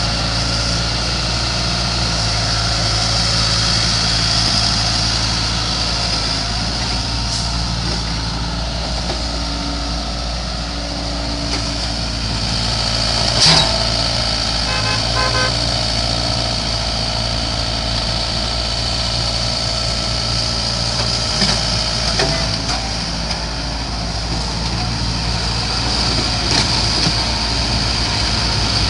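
Sumitomo hydraulic crawler excavator's diesel engine running steadily while the machine tracks and swings its boom, with a single sharp metallic knock about halfway through.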